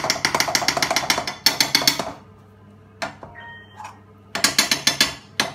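Rapid crackling and spitting as a spoonful of ghee drops into a hot wok of roasting curry paste, lasting about two seconds, then a shorter burst about four and a half seconds in as the spoon works the ghee in the pan.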